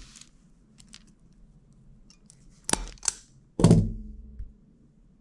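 Speaker wire being stripped by hand with a cutting tool: two sharp snips in quick succession a little past halfway, then a louder knock, amid quiet handling of the wire.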